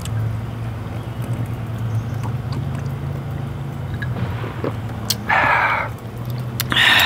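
A steady low mechanical hum, with two short hissing noises about five and seven seconds in.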